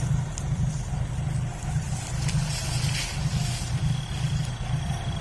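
Loaded sugarcane truck's diesel engine running at low speed with a steady, pulsing low rumble as it crawls along a muddy track.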